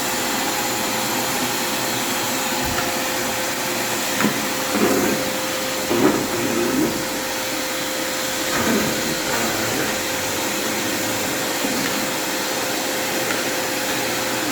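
3-in-1 vacuum cleaner running steadily, a constant rushing with a fixed whine.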